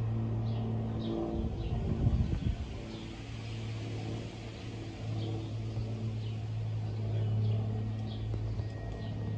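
Cessna 402C's twin turbocharged six-cylinder piston engines and propellers droning steadily as the plane climbs out overhead, with a few low thumps about two seconds in.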